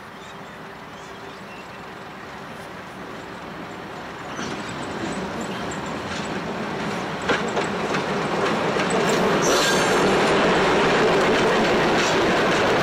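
Vintage Alco diesel locomotive hauling two steel passenger carriages, approaching and passing close by. Its engine and wheel noise grow steadily louder, with sharp clicks of wheels over rail joints from about four seconds in, and the sound is loudest over the last few seconds as the locomotive goes past.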